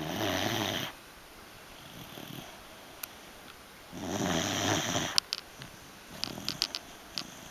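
Beagle snoring in its sleep: two loud snores about four seconds apart, with a fainter one between them. A run of short clicking sounds follows the second loud snore.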